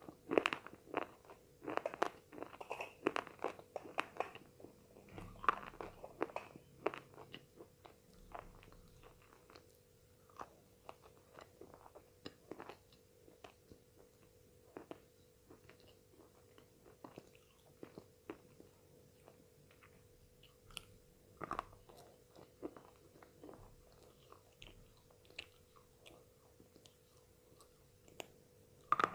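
Slate pencils being bitten and chewed with crisp crunches: a quick run of crunches for the first several seconds, then slower, sparser chewing with a sharper bite about 21 seconds in. A faint steady hum runs underneath.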